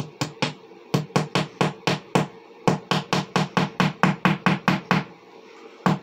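A screw being knocked into the wall with a hand-held metal tool used as a makeshift hammer: sharp taps at about four a second, in three quick runs with brief pauses.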